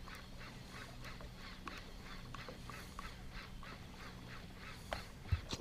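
A topwater musky lure being reeled across the lake surface, making a rhythmic quack-like plop about three times a second, over a steady low hum.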